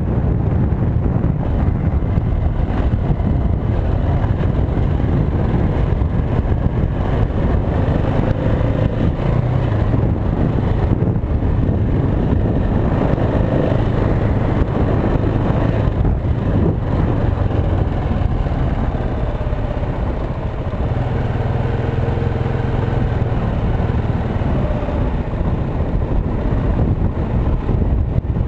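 KTM 690 Enduro R single-cylinder engine running under way on a dirt track, its pitch rising and falling with the throttle, heard with wind rushing past the helmet-mounted camera.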